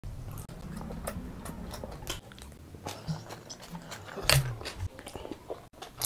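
A person biting into and chewing food, starting with a bite of onion pizza: a string of short wet clicks and crunches. The loudest, sharpest crunch comes a little past four seconds in.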